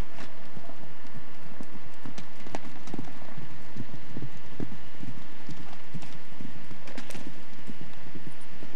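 Horse hooves clopping on the ground, an irregular run of hoofbeats.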